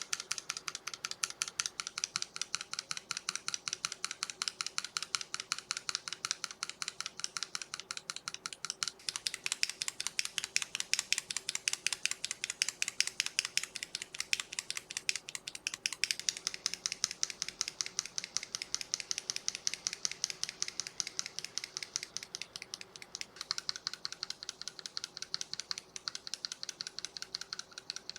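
Keycapped mechanical keyboard switches in a switch tester, each pressed and released over and over at about three strokes a second. The switches change in turn, roughly every seven seconds: Akko V3 Cream Yellow, Akko CS Jelly Purple, Akko CS Silver, then Akko CS Wine Red, each with its own keystroke tone.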